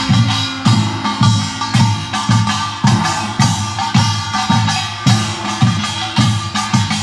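Korean pungmul percussion band playing: drums beat a steady pulse of about two strokes a second under the dense clanging of small gongs.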